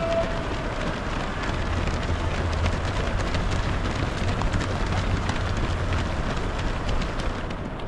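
Footfalls of a pack of half-marathon runners on an asphalt road: many running shoes striking the tarmac in a dense, uneven stream of quick taps over a low steady rumble.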